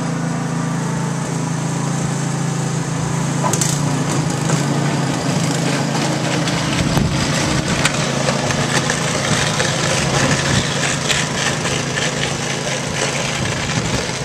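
Snow blower's small engine running steadily. After a few seconds a rough crackling hiss joins it as it churns and throws snow.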